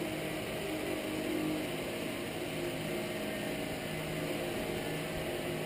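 Propane burner under a cast iron lead-melting pot, running with a steady rushing noise and a low, even hum.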